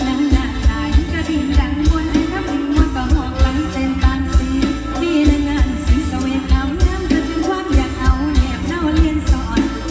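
Live Isan mor lam band music amplified through a PA system: a steady drum beat under a wavering sung melody.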